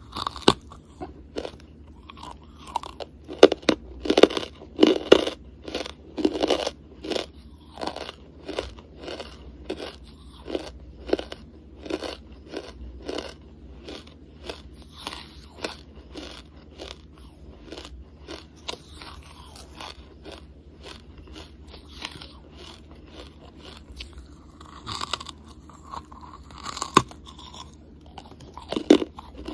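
Hard lumps of charcoal being bitten and chewed: loud, crisp crunches in the first several seconds, then a steady run of smaller chewing crunches about once a second, with louder crunches again near the end.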